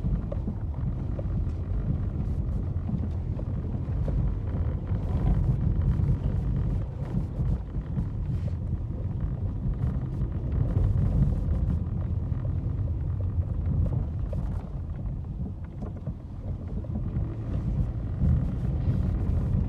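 A vehicle driving along a road: a steady low rumble of engine and tyres, with wind buffeting the microphone.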